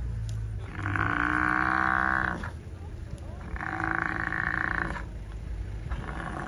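African buffalo bellowing under attack by lions: long, drawn-out distress calls, two full ones and a third starting near the end.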